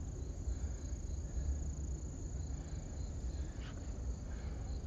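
Insects trilling steadily at a high pitch, over a low rumble.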